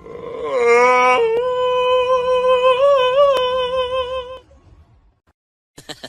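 One long vocal note held for about four seconds at a steady pitch, with a slight wobble near the end, then breaking off.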